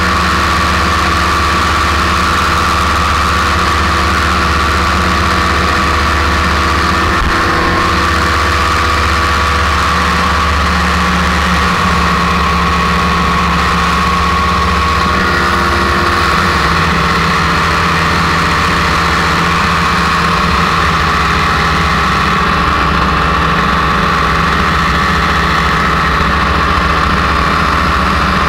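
Paramotor engine and propeller running steadily in flight, with a few small shifts in pitch.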